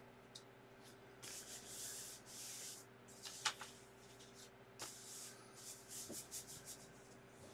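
Faint rubbing and rustling handling noise, broken by a few sharp clicks; the loudest click comes about three and a half seconds in. Near the end there is a quick run of short rustles.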